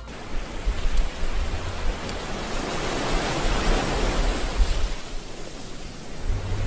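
Ocean waves washing: a rushing swell that builds to a peak about halfway through and then ebbs away, over a low rumble.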